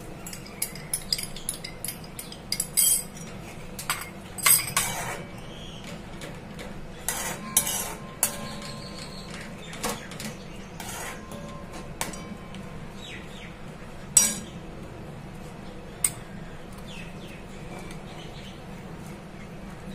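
Steel spoon stirring tomato sauce in a metal kadai, with irregular clinks and scrapes of the spoon against the pan as cornflour slurry is stirred in; the loudest clink comes about fourteen seconds in.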